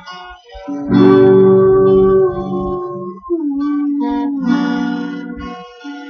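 Acoustic guitar played solo, strummed and picked chords ringing out, with a firm strum about a second in.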